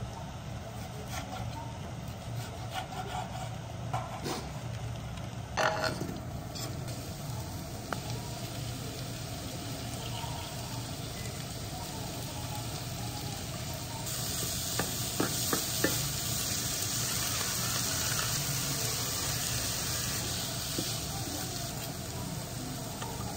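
A kitchen knife knocking on a wooden cutting board as meat is cut, a few uneven strokes. About two-thirds of the way through, diced meat and onion start sizzling in a frying pan with a steady hiss, with a few clicks from the pan.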